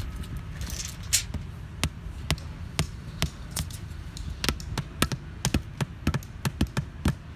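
A run of sharp knocks of tools on paving stone, a few a second and coming faster in the second half, over a low steady rumble.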